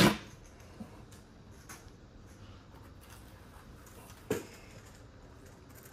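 Quiet handling noise of a replica championship belt and its side plates being picked up and moved: a few light clicks and one sharper knock about four seconds in.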